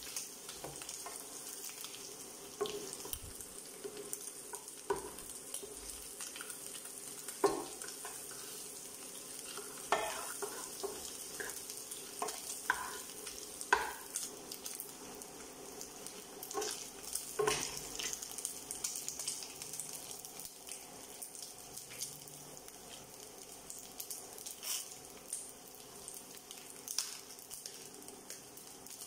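Dried anchovies sizzling in hot oil in a nonstick frying pan, a steady hiss, while a wooden spatula stirs them, with scattered sharp knocks and clicks against the pan.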